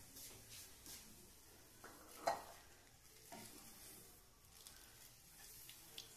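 Wooden spatula stirring oats, vegetables and water in a kadai, with a few soft scrapes and knocks against the pan, the clearest about two seconds in. A faint sizzle of the heating water lies beneath.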